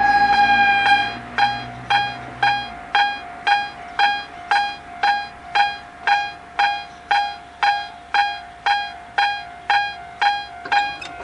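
Electronic warning bell of a Japanese railway level crossing starting up: one held tone for about a second, then steady rhythmic ringing at about two strokes a second. A low hum fades out about three seconds in.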